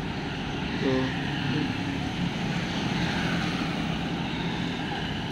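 Street traffic picked up by a phone's microphone: a steady engine drone from vehicles on the road, with a brief voice about a second in.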